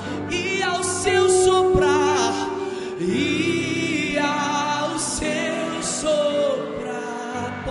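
Live Christian worship music: a singer holds long, wavering notes over sustained band accompaniment.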